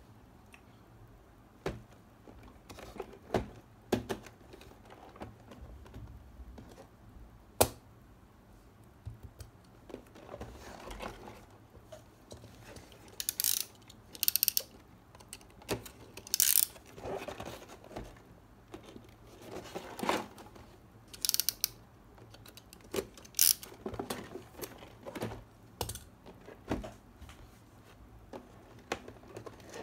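Hands handling a cardboard model-kit box: scattered taps and knocks on the cardboard, with a few short scratchy scrapes across it in the middle.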